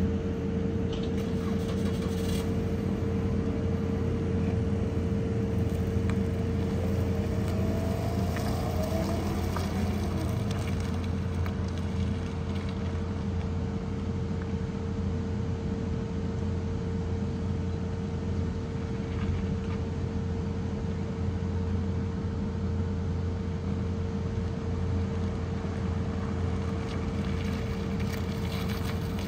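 Steady mechanical drone with a constant hum tone that does not change in level or pitch. A faint engine note rises and falls between about 7 and 10 seconds in.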